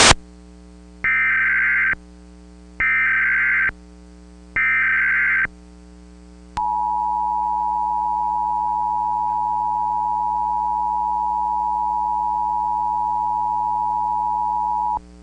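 Emergency Alert System test tones: three short bursts of SAME header data tones, each under a second, followed by the EAS attention signal, a steady two-tone 853/960 Hz sound held for about eight seconds. A faint steady hum runs underneath.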